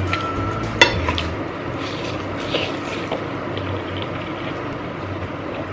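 Wet eating sounds of spicy instant noodles being slurped and chewed, with a sharp click a little under a second in.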